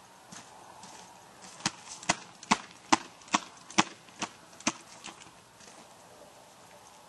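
A quick run of about nine sharp knocks, about two and a half a second, starting a second and a half in and fading out after about three seconds.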